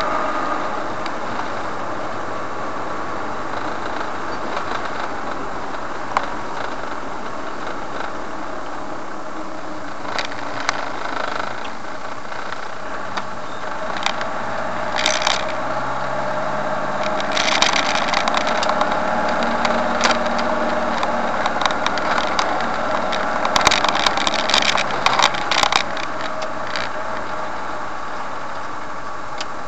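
Car driving along, its engine and tyre noise running steadily, with a few short bursts of clicks and crackling in the middle of the stretch.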